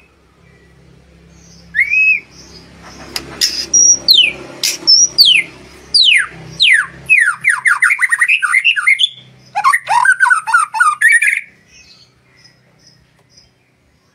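White-rumped shama (murai batu) singing: a loud, varied run of clear whistles, fast downward-sweeping notes and rapid rattling trills. It starts about two seconds in and stops a couple of seconds before the end.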